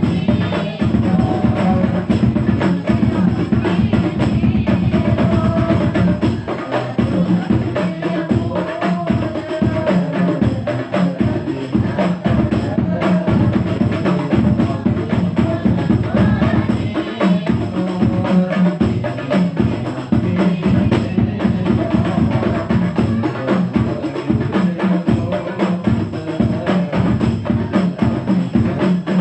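Sholawat music driven by drums and percussion in a steady, dense rhythm, with a melody line over it.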